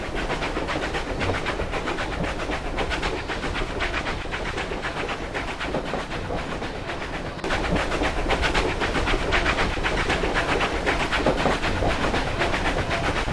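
Steam train running, a rapid rhythmic beat of the locomotive and wagons on the rails, growing louder about halfway through.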